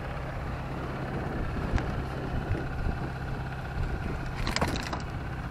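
Boat engine idling steadily under a low hum of wind and water, with a single sharp tick about two seconds in and a short run of clicks and knocks near the end.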